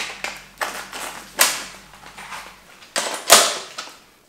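Paintball marker magazine change: a handful of sharp knocks and clatters as the empty magazine is dropped onto a floor mat and a fresh magazine is pulled from a belt pouch and seated in the marker. The two loudest knocks come about a second and a half in and near three and a half seconds.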